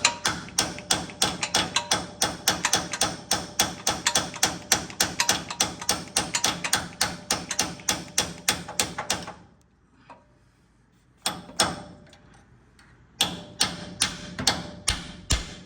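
Hammer blows on a steel punch, driving out a stuck part: a fast, even run of ringing metallic strikes, about four a second. The strikes stop a little over nine seconds in, a short flurry follows, and steady strikes start again near the end.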